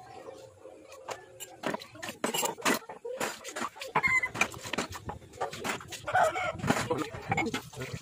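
Chickens clucking, with sharp clicks and knocks throughout.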